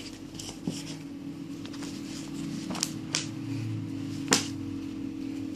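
Book pages being handled and leafed through: soft paper rustling with a few sharp clicks, over a steady low hum.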